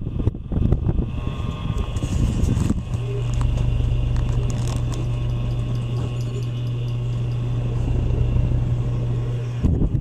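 Harbor Breeze Breezeway 30-inch hugger ceiling fan running, with a low rumble of air from its spinning blades on the microphone. About three seconds in, a steady motor hum settles in, breaking off just before the end.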